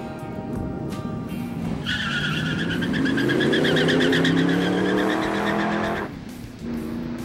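A short music sting, then about two seconds in the Baldwin Motion Camaro's 427 V8 launches hard: the engine rises in pitch while the rear tires squeal in wheelspin. The sound cuts off suddenly about six seconds in.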